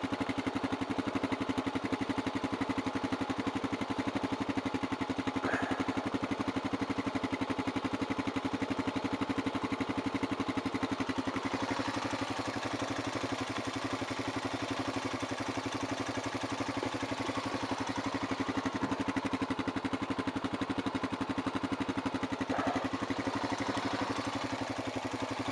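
Quad (ATV) engine running steadily while driving, a constant pulsing drone.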